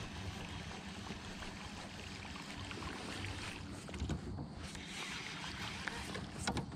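Quiet water and hull noise from a small fishing boat drifting on a calm river, with light wind on the microphone and a few soft knocks about three and a half to four seconds in.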